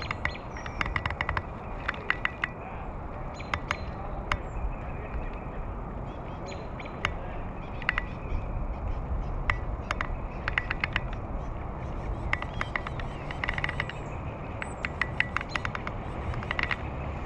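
Steady rush of moving river water and wind, broken every second or two by short clusters of rapid sharp clicks.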